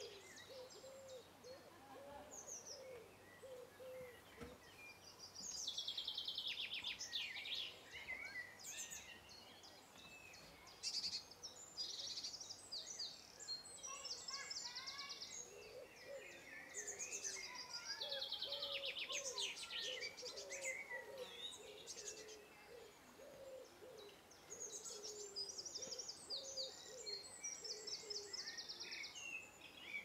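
Several wild birds singing and calling together, with loud high trilling song phrases that come back every few seconds over a run of short low calls.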